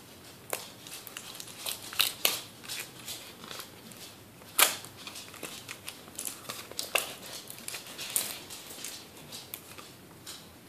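Thin plastic 20-ounce pop bottle crinkling and crackling in the hands while tape is wrapped and pressed onto it, with irregular sharp clicks, the loudest about four and a half seconds in.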